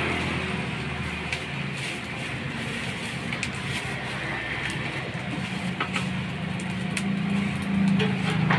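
Rice and egg sizzling in a wok over a gas burner, a steady hiss with a few light clicks, under a low traffic hum that grows louder near the end.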